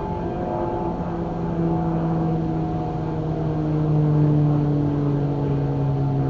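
Distant outdoor warning sirens, Thunderbolt 1000AT among them, sounding a steady alert test tone. Several tones blend together, and the strongest low ones slide slowly down in pitch.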